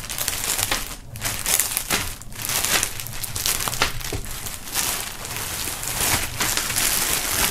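Thin clear plastic film wrapping crinkling and rustling irregularly as it is torn open by hand and pulled off a folded garment.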